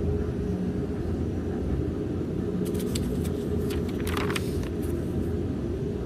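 Steady low rumble and hum of a ship's engines and machinery heard on board, with a few short paper rustles a little before the middle as log book pages are turned.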